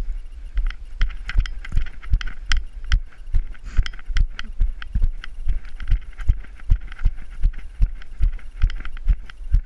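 A person running on a grassy dirt track, footfalls thudding steadily about two and a half times a second, heard close up from a camera carried by the runner, with rustling between the steps.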